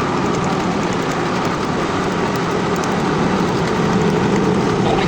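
Honda Civic Rebirth engine running steadily at idle; the engine is misfiring from bad spark plugs and ignition coils.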